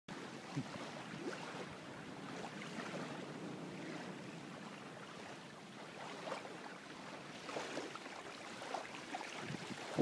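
Faint steady wind with small waves lapping on a sandy shoreline, and a few soft splashes scattered through.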